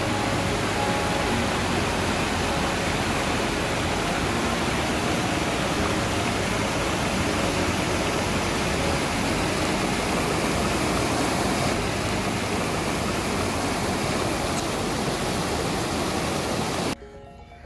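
Mountain stream rushing and splashing over boulders in a steady rush of white water, which cuts off abruptly near the end.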